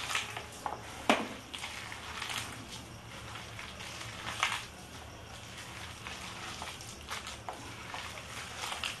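A hand squeezing and kneading sliced onions in a thick gram-flour (besan) batter in an enamel bowl: irregular wet squelches and sticky clicks. The mix holds more onion than flour, for onion pakoras.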